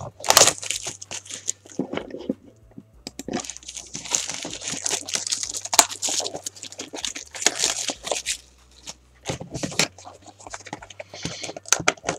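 Plastic shrink-wrap torn and crumpled off a cardboard trading card box, crackling and rustling in a run of bursts with short pauses.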